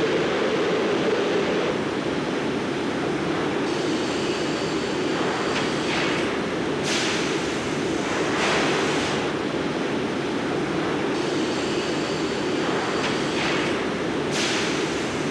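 Steady industrial machinery noise: a continuous rumble with several surges of hiss in between.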